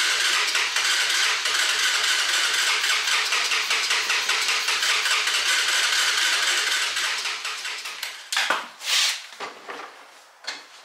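Electric starter cranking the Honda FourTrax 300's single-cylinder engine with an even, rapid beat of compression strokes, without the engine catching. The cranking winds down about seven seconds in, and a few short bursts of noise follow near the end.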